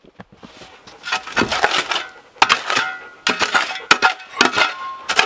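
Metal shovel scraping and digging into sandy, gritty soil in a series of strokes about a second apart, with a light metallic ring.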